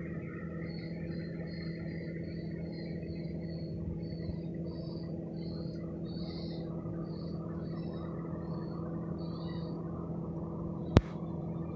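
Outdoor ambience: a steady low hum under a long run of short, high chirps that become more widely spaced, then one sharp click near the end.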